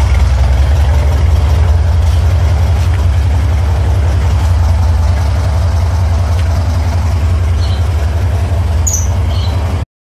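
VW Safari (Type 181 Thing)'s air-cooled 1600 cc flat-four engine idling steadily while being warmed up. The sound cuts off suddenly near the end.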